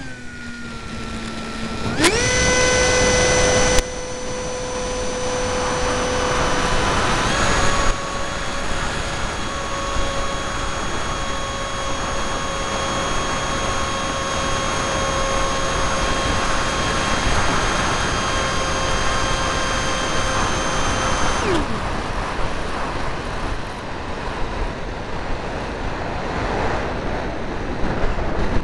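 RC airplane's motor and propeller whining, heard from the nose of the plane: throttled low at first, run back up sharply about two seconds in and held steady. About three-quarters of the way through the whine falls away as the motor is cut, leaving wind rushing over the airframe as it glides down to land.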